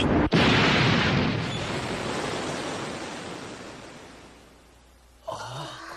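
Animated-series sound effect: a loud rushing noise that breaks off for an instant just after the start, surges back and fades slowly over about four seconds. A pitched sound with wavering tones comes in about five seconds in.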